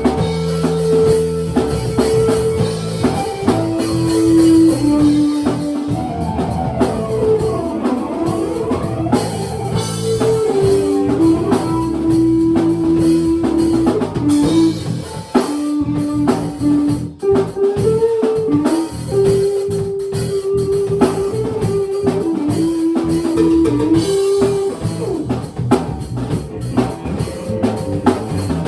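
Live instrumental jam: a drum kit keeping a steady beat under guitar, with a melody of long held notes moving up and down in steps over it.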